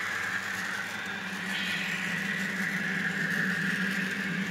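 ScaleTrains Tier 4 GEVO N scale model locomotive running under load up a 2% grade, pulling a string of cars with a steady hum.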